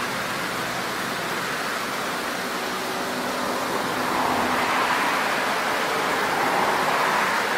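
Steady rush of a small waterfall, a continuous noisy roar of falling water that grows somewhat louder from about halfway through.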